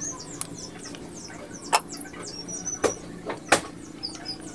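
A few sharp metallic clicks and knocks as the oil filter cover is taken off a Suzuki Raider R150's engine, three of them louder in the second half. Small birds chirp rapidly throughout.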